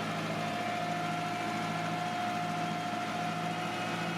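A motor running steadily, with a steady hum and a thin whine above it.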